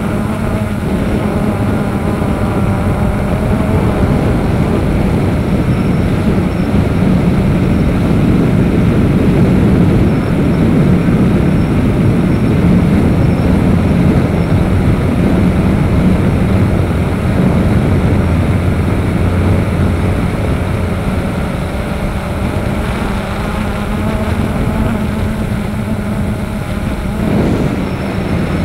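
Electric motors and propellers of a small camera drone, heard from the on-board camera: a steady whine that wavers slightly in pitch, over rushing wind on the microphone.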